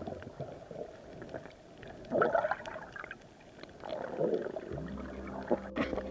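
Underwater gurgling and water movement, swelling twice, about two seconds in and again about four seconds in. A steady low hum comes in near the end.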